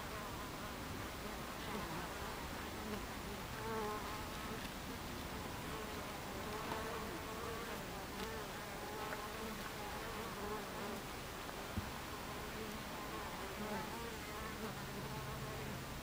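Buckfast honeybees buzzing at the hive entrance: a steady hum of many wings, with individual buzzes rising and falling in pitch as single bees fly close past. One short tick sounds about twelve seconds in.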